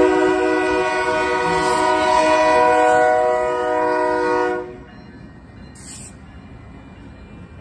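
Union Pacific GP22T4 locomotive's air horn sounding one long chord of several tones for about four and a half seconds, the warning for the grade crossing. It then stops suddenly, leaving the much quieter rumble of the locomotives rolling past.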